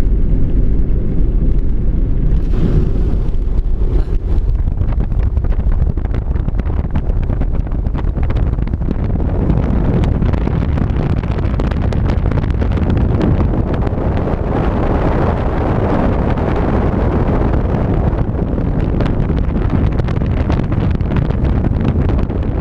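A vehicle driving steadily, its engine and tyre noise mixed with wind buffeting the microphone.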